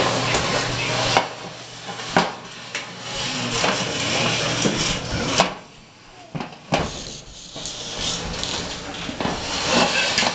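Irregular knocks and clatter of a large metal bucket being handled and bumped by toddlers, about a dozen sharp hits over several seconds with pauses between.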